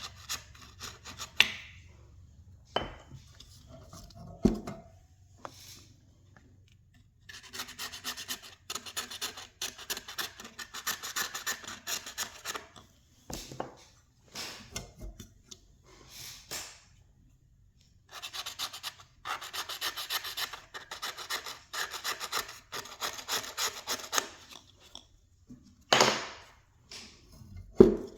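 A blade scraping the remains of the deteriorated foam surround off a McIntosh 6-inch car speaker's cone. Rapid back-and-forth scraping comes in two long runs, with a few sharp clicks and knocks between them.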